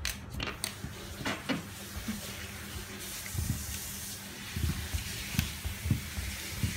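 Light knocks and scratches against a glass panel as a beagle puppy paws and noses at it, a few sharp taps in the first second and a half and soft thumps later. A steady hiss comes in about three seconds in.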